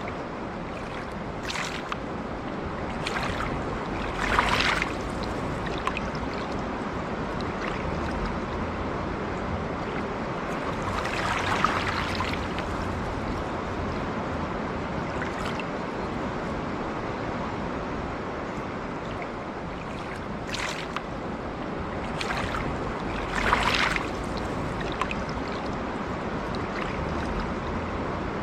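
A calm river flowing steadily, with a brief, louder splash or gurgle of water now and then.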